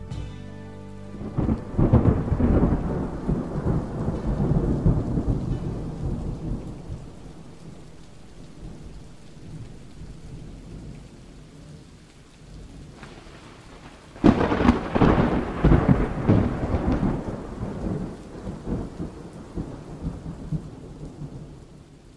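Thunderstorm: steady rain with two long rolls of thunder, the first about two seconds in and the second, sharper, about fourteen seconds in, each dying away over several seconds.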